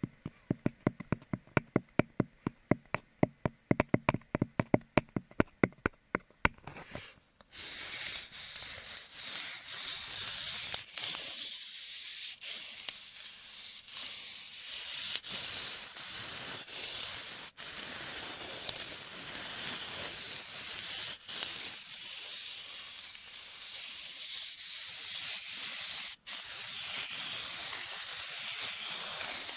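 Ear-cleaning ASMR sounds close to the microphone: about six seconds of quick, evenly spaced clicks, about five a second, then a steady high hissing rub that carries on with a few brief breaks.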